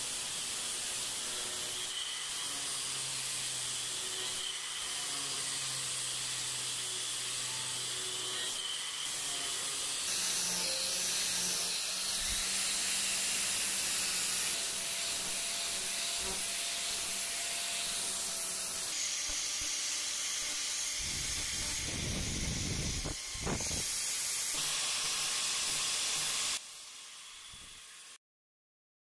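Angle grinder with an abrasive disc grinding the steel of a chisel clamped in a vice: a steady, loud, high-pitched grinding noise with a few sudden shifts in tone. It drops in level about 26 seconds in and cuts off just before the end.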